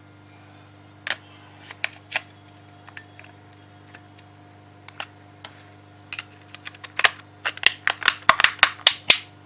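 Battery being fitted into a JioFi 3 pocket Wi-Fi hotspot: scattered small plastic clicks and taps, then a quick run of louder clicks and snaps near the end.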